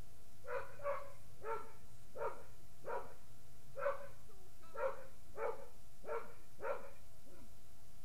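A dog barking about ten times in an even run, roughly one bark every two-thirds of a second, stopping near the end.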